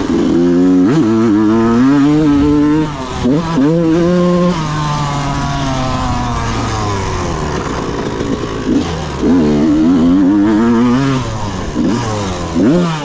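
2001 Yamaha YZ125's two-stroke single-cylinder engine being ridden hard, revving up and falling back several times as the throttle is opened and rolled off.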